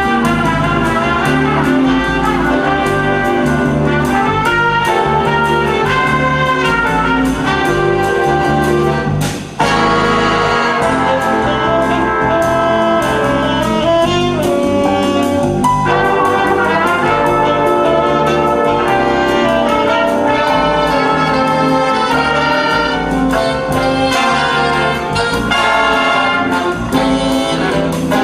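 A big band playing jazz live: saxophones, trumpets and trombones over piano, guitar, bass and drums. The band stops for a moment about nine and a half seconds in, then comes back in together.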